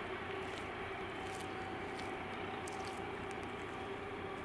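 Steady distant vehicle rumble with a faint humming tone, easing off slightly.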